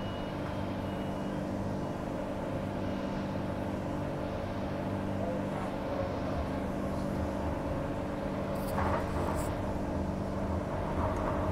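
Cabin sound of a Transperth A-series electric multiple unit under way: a steady hum with several held tones over the rumble of wheels on rails. There are a couple of short, sharp high ticks about nine seconds in.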